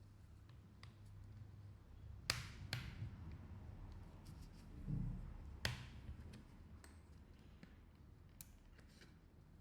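A few sharp clicks and taps, with a soft knock about five seconds in, as a smartphone and small repair tools are handled on a bench, over a faint low hum.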